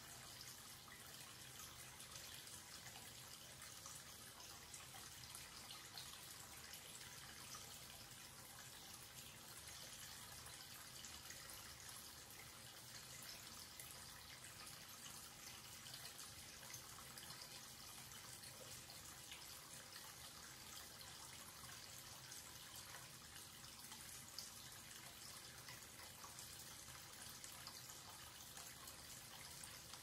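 Faint, steady running water from a wall-mounted tap falling in a thin stream into a white ceramic washbasin and swirling down the open drain, an even trickle and splash that does not change.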